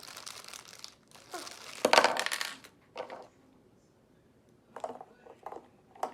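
Plastic toy packaging crinkling and rustling as a mystery pack is opened, loudest about two seconds in, followed by a few light clicks of plastic pieces near the end.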